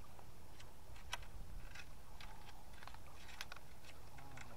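Flooded River Wharfe flowing past the bank: a steady low rush with many small crisp splashes and gurgles of water at the edge. A short falling call comes near the end.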